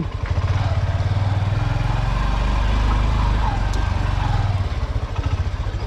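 Honda SP125's single-cylinder engine running steadily while the motorcycle is ridden, a fast even pulse of low exhaust beats.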